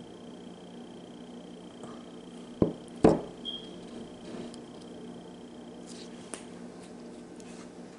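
Small glass jar candle set down on a table: two sharp knocks about half a second apart, the second louder, followed by a few faint ticks.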